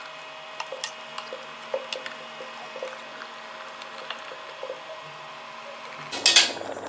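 Wooden spatula stirring and turning a whole chicken in thick masala gravy in a pot: wet squelching with scattered light scrapes and knocks against the pot, over a faint steady hum. A louder, brief rush of noise comes near the end.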